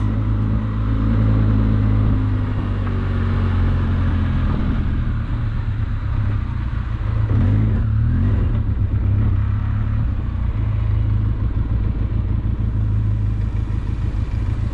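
Benelli motorcycle engine running steadily while riding, with the steady rush of road and wind noise.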